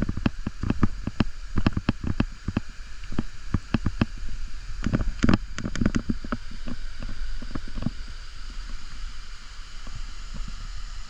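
Gunnison River running steadily, with a quick, irregular run of knocks and crunches over it through the first seven seconds or so.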